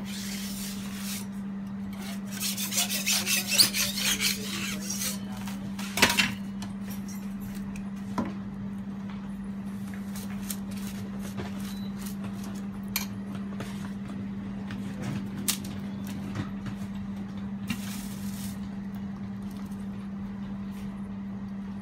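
Metal spatula scraping and tapping on a flat jianbing griddle: a run of quick scrapes a few seconds in, a sharp clack about six seconds in, then scattered light taps, over a steady low hum.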